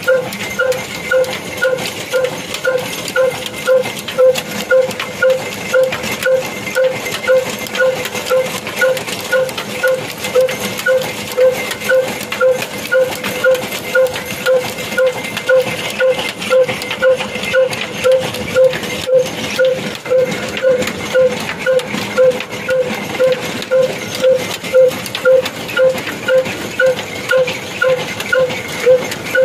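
Old slow-speed single-cylinder black diesel engine, about 22 HP, running steadily while it drives a mustard oil expeller by flat belt. It gives a loud, even beat a little under twice a second over a constant hiss and rattle of the belt and machinery.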